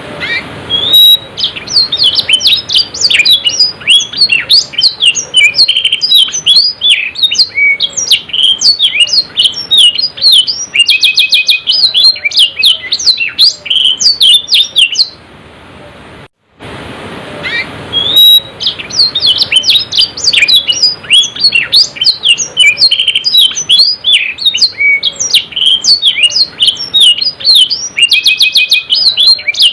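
Domestic canary singing a fast, continuous song of chirps and rolling trills. It breaks off about halfway through and starts again a couple of seconds later.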